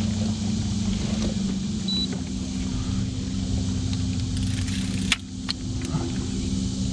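A boat's outboard motor running steadily at low speed with an even hum that shifts slightly in pitch about two seconds in. A sharp click comes a little after five seconds.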